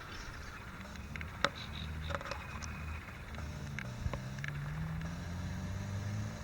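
A distant engine drones, its pitch shifting slowly, with scattered short bird chirps over it.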